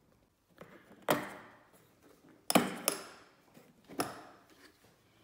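Plastic latches of a Bosch hard tool carry case being unclipped and the case handled: four sharp plastic clicks and knocks, roughly a second apart.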